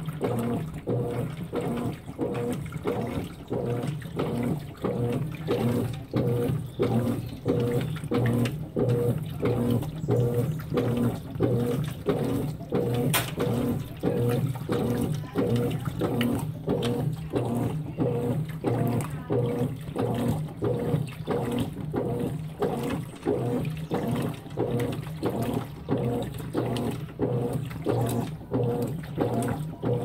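Consul 16 kg top-load washing machine agitating a load of jeans: water and suds slosh back and forth over a motor hum, in a regular pulse of about three strokes every two seconds.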